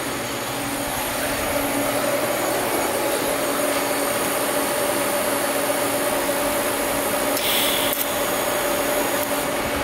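Steady mechanical shop hum, with a short hiss about three-quarters of the way through as a TIG welding arc is struck on stainless steel exhaust tubing.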